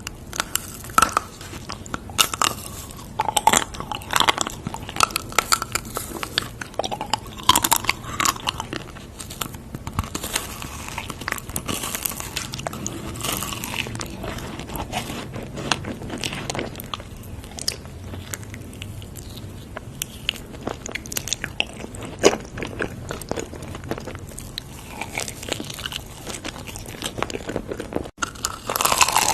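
Close-miked eating: a person biting and chewing crunchy food, with irregular crunches and crackles throughout.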